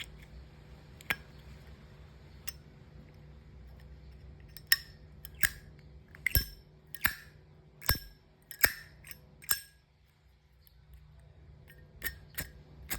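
Replica Zippo-style brass lighter being worked by hand: a string of sharp metal clicks, each with a short bright ring, as the hinged lid is flipped open and snapped shut, about eight clicks in quick succession in the middle and a few single clicks before and after.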